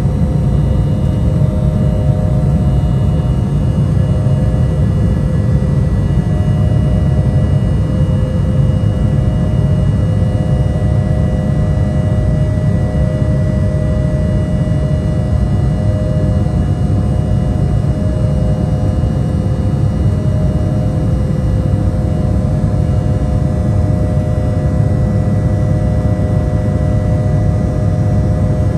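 Cabin noise of an Embraer E170 climbing after takeoff: a steady low roar of rushing air and its GE CF34 turbofan engines, with a few constant whining tones held over it.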